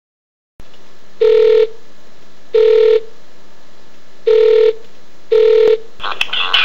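Four short electronic telephone tones, each about half a second long and spaced unevenly, over a steady hiss: the tones of an outgoing phone call. Music starts near the end.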